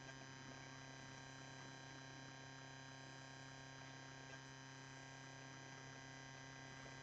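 A faint, steady hum with many thin steady tones above it, unchanging throughout.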